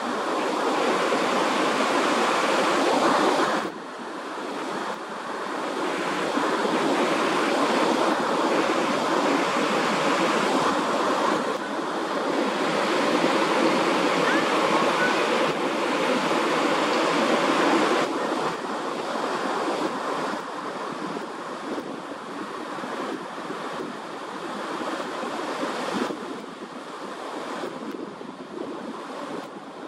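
Steady rushing noise of wind and surf, swelling and easing, with a sudden dip about three and a half seconds in.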